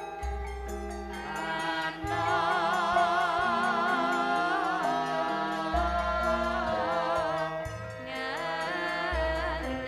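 Live band music with a woman singing a slow melody with strong vibrato, over deep bass notes held for a second or two at a time.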